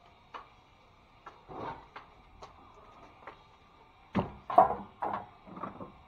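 Metal drywall scraper working peeling tape off a ceiling seam: scattered short scrapes and clicks, then a cluster of louder knocks and scrapes about four seconds in.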